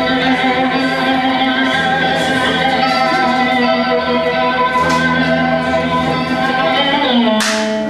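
Live blues band playing an instrumental passage: electric homemade box guitars, one built from a metal oil box, over drums. There is a cymbal crash about seven seconds in.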